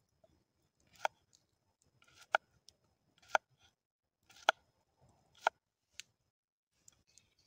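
Cucumber being sliced with a small folding knife on a bamboo cutting board: a crisp chop each time the blade goes through and strikes the board, about once a second.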